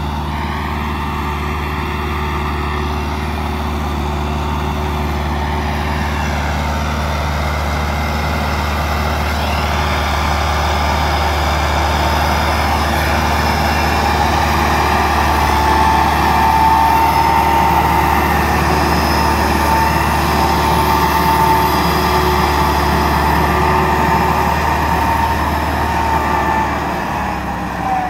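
Massey Ferguson 385 tractor's four-cylinder diesel engine running steadily under load as it pulls an overloaded trolley of soil over rough ground. It grows louder as it draws near and passes, with a steady high whine over the engine note, then fades near the end.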